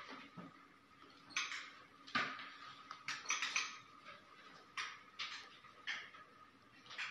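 Irregular clinks and scrapes of handheld tools against plastic basins and small dishes, about a dozen short bursts spaced unevenly, over a faint steady high hum.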